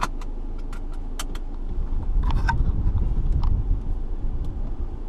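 Seatbelt being pulled across and buckled: a quick run of metallic clicks and rattles of the latch plate. From about two seconds in, a louder low rumble as the car starts moving.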